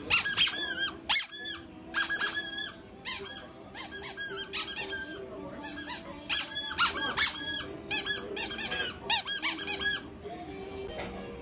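Rapid high-pitched squeaks in quick runs of several at a time, each rising and falling in pitch, stopping about ten seconds in.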